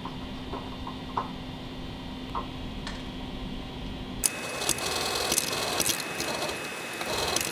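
A few light metal clicks as a small precision drill chuck is fitted into a milling machine's chuck. About four seconds in, the milling machine's spindle runs, a steady machine sound with a high whine.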